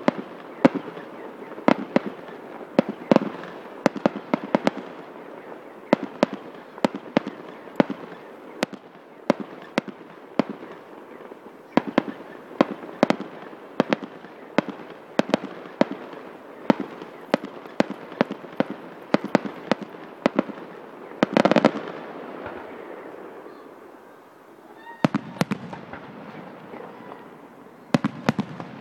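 Aerial fireworks going off in quick succession: a stream of sharp bangs and pops, several a second. A dense, louder cluster comes about two-thirds of the way through, followed by a short lull.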